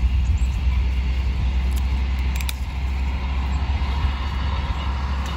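Wind rumbling on the microphone, a steady low buffeting, with a few faint clicks and rustles about two seconds in as an apple is twisted off its branch among the leaves.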